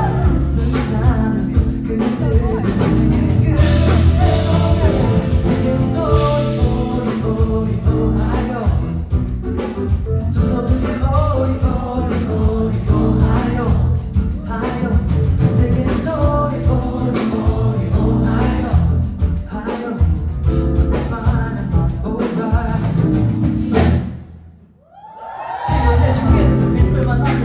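Live band playing a pop song with a singer's voice over guitar and drums. About 24 seconds in the music cuts out almost completely for a moment, then comes back.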